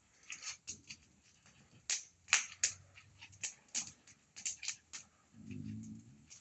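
Bonfire crackling, with irregular sharp pops and snaps of burning wood, a few of them loud. About five and a half seconds in, a brief low voice-like sound is heard under the crackle.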